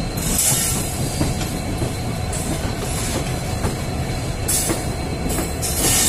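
A diesel-hauled passenger train of ICF coaches running on the track: a steady rumble of wheels on rails with faint clicks at the rail joints. Several short spells of high hiss come and go.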